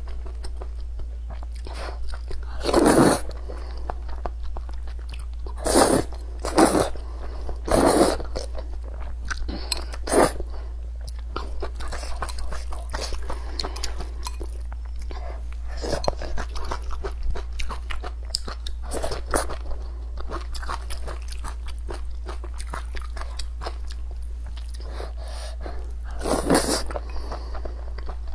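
Close-miked eating of thick sweet potato vermicelli noodles and stewed pork belly: steady chewing, with about half a dozen louder, brief mouth noises such as bites or slurps. A steady low hum lies underneath.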